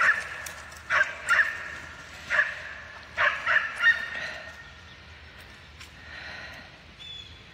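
A series of short, high-pitched animal calls or yips, about seven in the first four seconds, fading to quiet background after that.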